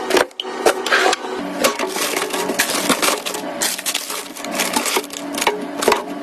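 Rapid, irregular clicks and knocks of small hard objects, such as plastic or glass containers and lids, being handled and set down.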